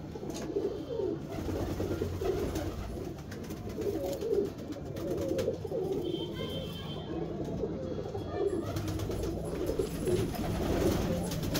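Satinette fancy pigeons cooing, several birds at once in a continuous, overlapping chorus.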